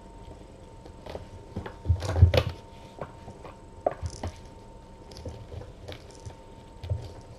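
Kittens at play: scattered soft knocks and scuffles of paws and toys on the floor, with a louder cluster about two seconds in. A faint steady electrical hum runs underneath.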